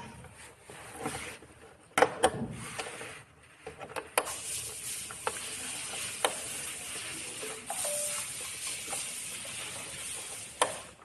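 Wire connectors being pulled out of a circuit board: a scatter of sharp plastic clicks and knocks, with a steady hiss from about four seconds in until near the end.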